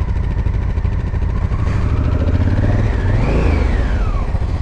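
Adventure motorcycle engine running under way over a heavy low rumble of wind. The engine note climbs over about two seconds, peaks just past the three-second mark, then drops away near the end as the throttle comes off.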